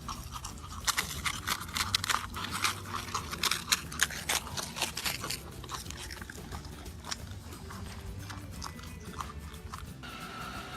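An animal chewing something crunchy: a quick run of sharp crunches over the first half, thinning out later, over steady background music.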